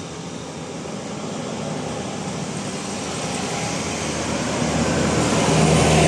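A bus approaching on the road, its engine and tyre noise growing steadily louder, with a steady low engine hum coming up near the end.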